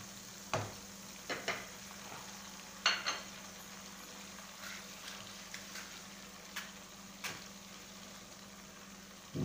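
Sliced onions frying in hot oil in a kadhai, a steady sizzle as they are browned. A few short knocks of the wooden spoon against the pan come in the first three seconds, and two light clicks follow later.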